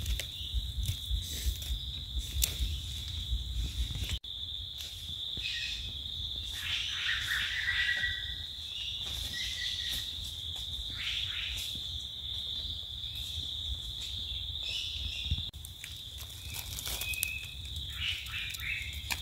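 A steady, high-pitched insect drone. In the first few seconds and again near the end come the clicks and scrapes of a knife cutting and trimming a wild mushroom's stem among dry leaves, and a few short chirps sound in the middle.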